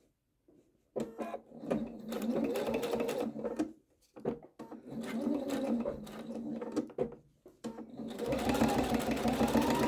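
Domestic sewing machine stitching a zipper onto quilted fabric with a zipper foot, in short stop-and-go runs. From about eight seconds in it runs continuously, its motor whine rising in pitch as it speeds up.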